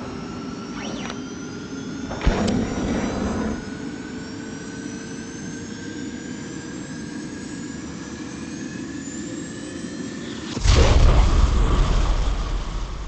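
Jet-engine sound effect: a whine rising slowly in pitch, with a sharp knock and a short rush of noise about two seconds in. Near the end comes a loud, deep blast that then fades.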